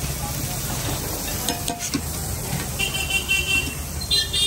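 Bread pudla frying on a flat iron griddle, sizzling, with a metal spatula clicking and scraping against the griddle. A steady street-traffic rumble runs underneath, and vehicle horns honk twice in the second half.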